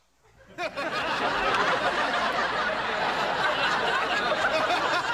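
A crowd laughing, starting about half a second in and holding steady, many voices at once.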